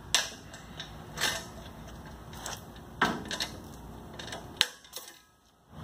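A handful of sharp metallic clanks and knocks from the sulky hitch and mower frame being handled, spaced a second or more apart over a steady background hiss. The sound drops away briefly near the end.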